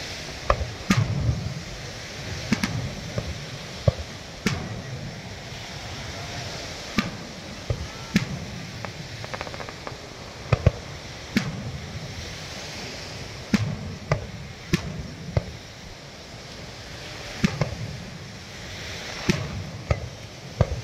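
Aerial fireworks shells bursting over the water: sharp bangs at irregular intervals, some in quick pairs, with a low rumble after the bigger ones.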